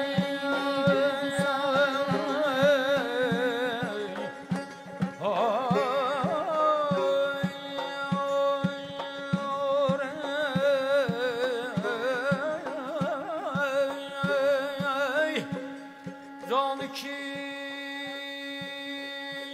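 Azerbaijani mugham singing: a wordless, melismatic vocal line with wide vibrato and quick trills, over a steady beat on qaval frame drums. The drumming stops about three-quarters of the way through, leaving a long held sung note.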